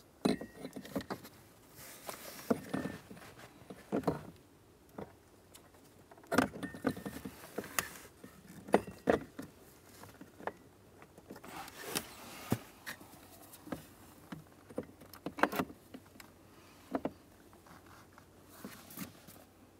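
Irregular clicks, taps and rustles of a plastic blower motor resistor and the surrounding plastic HVAC housing being handled and seated by hand, with a few louder knocks spread through.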